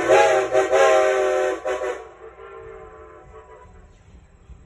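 Steam locomotive whistle blowing a long blast of about two seconds on a steady chord, then cutting off; a short second blast sounds near the end.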